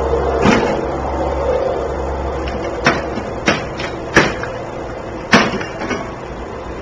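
A lawn mower being roughly handled or struck: a run of sharp knocks and bangs a second or so apart, over a low hum that fades after the first couple of seconds.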